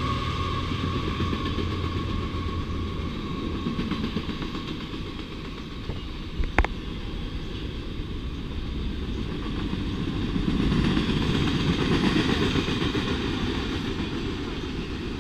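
Double-stacked container cars of a freight train rolling past on steel rails, a steady rumble that swells a little later on. The passing diesel locomotives' drone trails off in the first second or two. A single sharp clank comes about six and a half seconds in.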